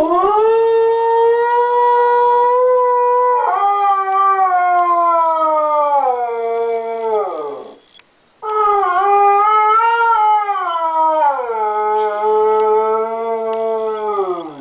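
Siberian husky howling: two long howls, each about seven seconds, with a short break between them. Each holds a steady pitch, steps down partway through and falls away at the end. The dog is howling in answer to a familiar baby's voice coming from a laptop.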